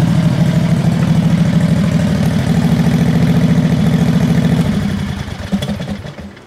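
V-twin engine of a 670 cc off-road go-kart running steadily with a fast, even pulse as the kart is driven; its sound falls away over the last second or two.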